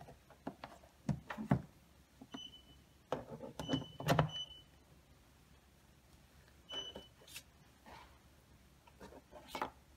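Tabletop handling of a wireless backup camera and its monitor: a series of clicks and knocks as the camera is set down and cables are picked up. Between them come a few short high beeps, about two and a half, four and seven seconds in.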